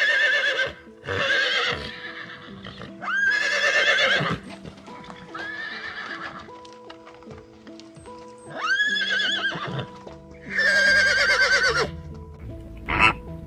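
Horse whinnying, about six quavering calls a second or two apart, over background music with held notes.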